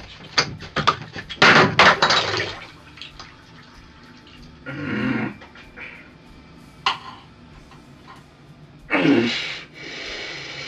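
Metal taps clinking and bursts of running, splashing water. Near the end comes a heavier knife stroke through cheese onto a wooden cutting board.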